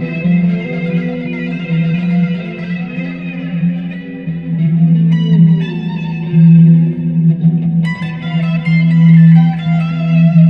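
Dean Avalanche C7 seven-string electric guitar played through a Line 6 Spider Jam amp with effects: a melodic lead line over a steady low sustained note, with new high notes struck sharply about five and eight seconds in.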